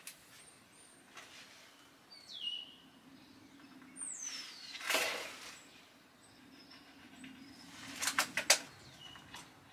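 Small birds chirping, with high whistles that slide down in pitch, over scraping and tapping from marking out a plywood van floor. A short scrape comes about halfway through, and a quick run of sharp clicks near the end is the loudest sound.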